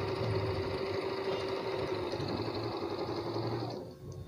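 Janome Memory Craft 6000 computerised sewing machine running steadily as it stitches a crescent-moon decorative pattern, its motor hum and needle rhythm stopping a little before four seconds in.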